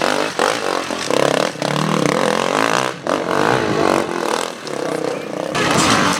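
Enduro motorcycle engines revving up and falling off again and again, with knocks between the revs. The revs dip about three seconds in and rise again near the end.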